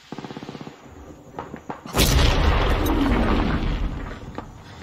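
Battle sound effects: a rapid burst of machine-gun fire, then about two seconds in a loud explosion whose rumble fades away over the next two seconds.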